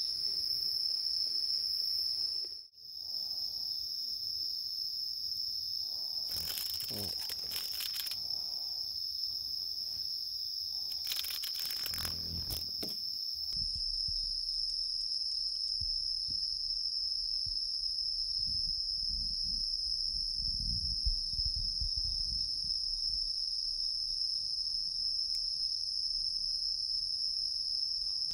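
Steady chorus of night-singing insects, one continuous high shrill tone with a fainter higher layer above it. Twice in the first half a few seconds of rustling cut across it.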